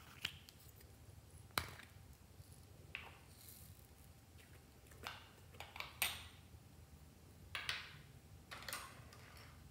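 Scattered plastic clicks and short scrapes from egg-shaped plastic lip balm cases being handled and twisted open, two sharp clicks standing out among softer taps.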